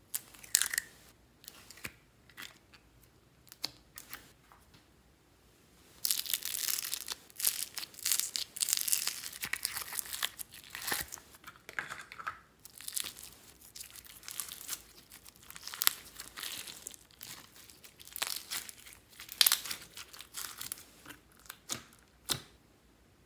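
Slime, partly studded with foam beads, squished and pressed by hand in a glass dish. It gives scattered sharp pops at first, a dense run of crackling about a third of the way in, then more pops that die away near the end.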